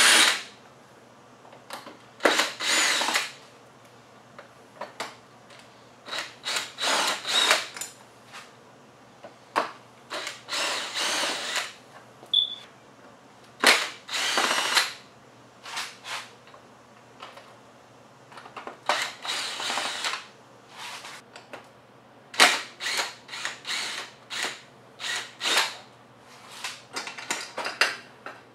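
Cordless drill-driver with a Torx bit running in short bursts of about a second, backing out the screws of a motorcycle fairing's inner tray. Brief clicks and rattles of handling come between the runs.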